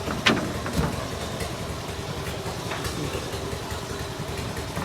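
An engine running steadily at idle, with a sharp knock about a third of a second in and a lighter one just after.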